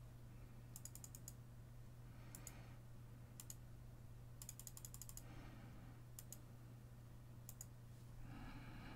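Near silence with a steady low hum and faint, light clicks coming in a few short quick runs.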